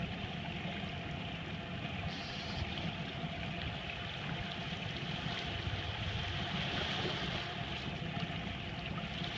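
Boat engine idling steadily, with water sloshing and running along the hull.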